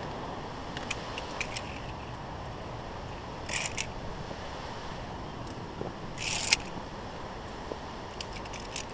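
Via ferrata carabiners clinking and scraping along the steel safety cable while climbing, with scattered small clicks and two short metallic jangles, about a third and two thirds of the way in, over a steady low rushing noise.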